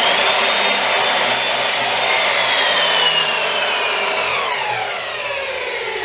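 Circular saw starting up and cutting the end off a glued-up laminated timber block. Its high whine holds steady, then falls in pitch over the last few seconds as the blade winds down.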